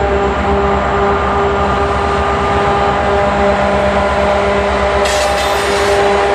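A group of diesel-electric freight locomotives passing close, with a steady engine drone over a deep rumble. About five seconds in, a brief high hiss joins it.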